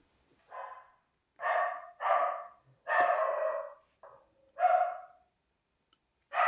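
A dog barking, about six barks roughly a second apart.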